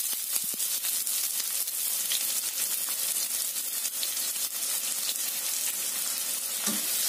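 Diced onion sizzling steadily in hot olive oil in a wok, with many small pops and crackles through the hiss.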